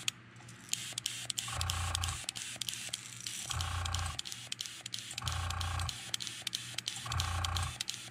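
Airbrush run at low air pressure, about 10 psi, spattering red paint onto a crankbait in short regular bursts roughly every two seconds.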